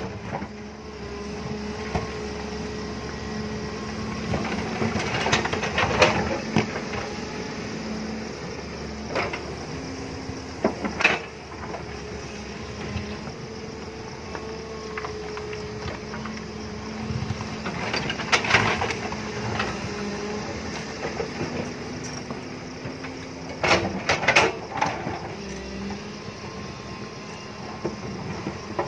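JCB tracked excavator's diesel engine running under working load, its note shifting in pitch as the boom and bucket move. The bucket scrapes and knocks against earth and rocks several times, with a cluster of knocks near the end.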